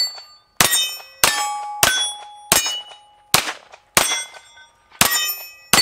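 Walther Q5 Match 9mm pistol firing eight shots at a steady pace, about one every two-thirds of a second. Each shot is followed by the ring of a steel target being hit.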